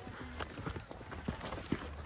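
Footsteps of people walking on a dirt trail: irregular short knocks and scuffs, several a second.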